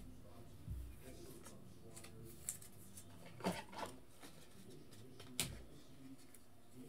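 A quiet room with a handful of faint, short clicks and knocks, scattered a second or so apart. The loudest comes about halfway through.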